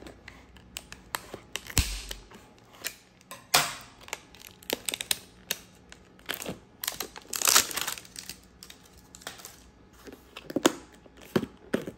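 Clear plastic tub's snap-on lid being pried open by hand: a string of sharp plastic clicks and crackles as the rim is worked loose, the loudest crackle about seven and a half seconds in.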